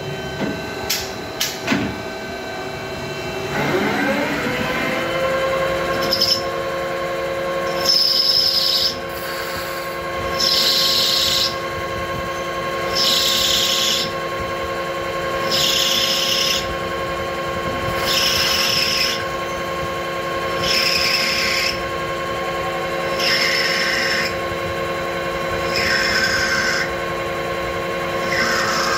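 CNC lathe spindle speeding up with a rising whine, then running at a steady pitch. Over it the cutting tool takes repeated roughing passes on a brass bar in a G71 cycle: about ten hissing cuts, each about a second long, one every two and a half seconds or so. A few clicks come near the start.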